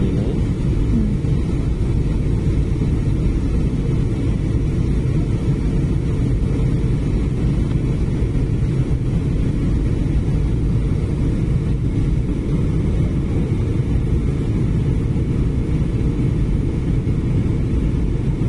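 Steady cabin noise of an airliner in flight, heard from inside the cabin: a constant low rumble of engines and rushing air.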